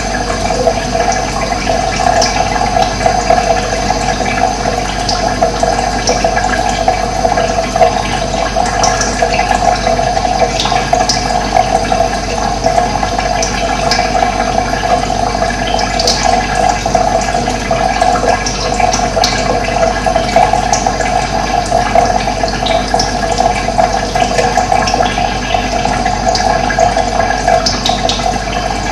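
Steady sound of running water, with short high bird chirps scattered through it.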